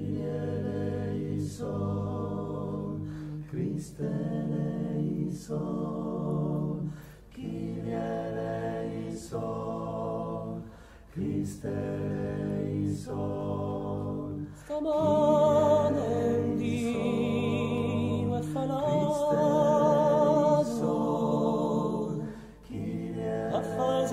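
Male vocal ensemble singing Corsican polyphony a cappella: several men's voices hold close chords in long phrases, with short breaks for breath between them. About fifteen seconds in, the singing gets louder and a higher, ornamented voice wavers above the others.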